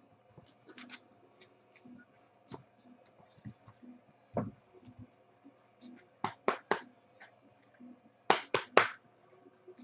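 Sharp clicks or taps, a few scattered and then two quick runs of three about six and eight and a half seconds in, over a faint steady hum.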